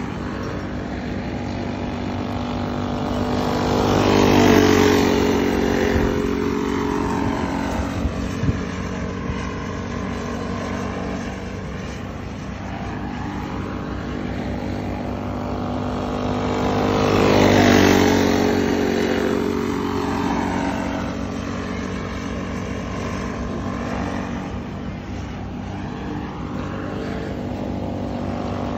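Small racing go-kart engines running at speed around a dirt oval. The engine note swells loudly as the karts pass close twice, about 13 seconds apart, dropping in pitch as each pass goes by, and stays as a buzz from the far side of the track in between.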